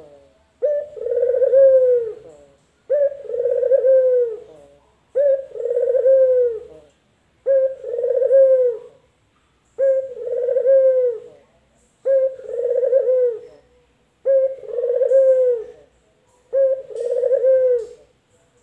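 Male puter lokal, a ring-necked dove, cooing: a short clipped note run into a drawn-out coo that dips in pitch at its end. It repeats about every two seconds, eight times.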